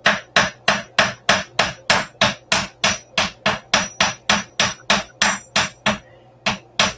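Hammer striking a small piece of silver on a metal block to flatten it: steady, even blows, about three a second, each with a short metallic ring. They pause briefly near the end, then two more blows come.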